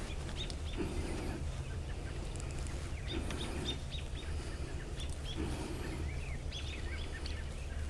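Small birds chirping off and on over a steady low background hum, with a soft rustle recurring about every two seconds.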